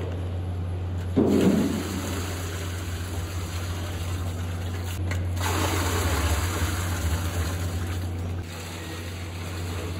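Milk gushing and splashing from plastic pouches into a stainless steel mixing vat, loudest about a second in and again from about five seconds in, over a steady low machine hum.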